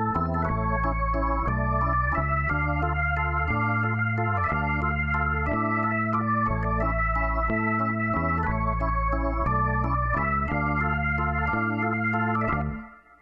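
Background music on a keyboard with an organ-like sound: sustained chords over a bass line that change every second or so, fading out near the end.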